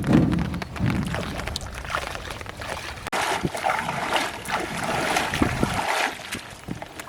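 Rain and splashing water around a small boat, with a low rumble in the first second or so.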